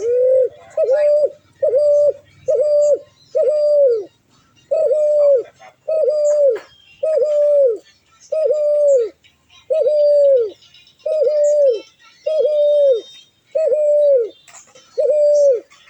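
A bird repeating one clear, hooting note over and over, a little under a second apart; each note holds its pitch and then drops at the end. Fainter high chirps sound in the background.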